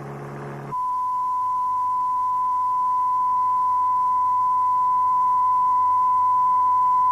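A short low buzzing hum with many overtones cuts off under a second in. A steady, pure 1 kHz test tone follows, a reference tone for learning to recognise noise frequencies by ear.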